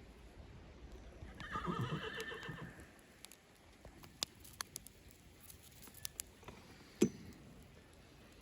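A horse whinnies once for about a second, a wavering, fluttering call. It is followed by scattered light clicks and knocks, with one sharper knock near the end.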